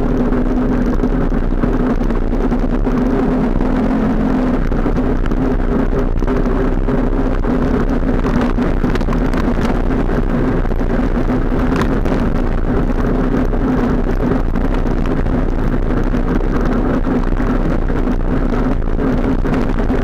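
ATV engine running steadily under way on a gravel trail, with a steady hum under heavy wind and road noise on the microphone.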